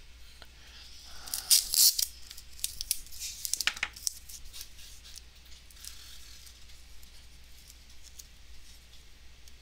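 Tape being pulled and pressed around a plastic toy's glued wing: a few short rustles in the first four seconds, the loudest about one and a half to two seconds in, then quieter handling noise.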